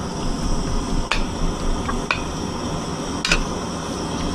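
Raw chicken being stirred in hot oil in a pan over a campfire: a steady sizzle, with a cooking utensil knocking against the pan three times.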